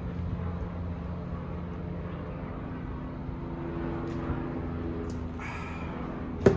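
Steady low engine-like drone and rumble in the background. Just before the end comes a sharp single knock as a plastic cup of iced coffee is set down on a wooden table.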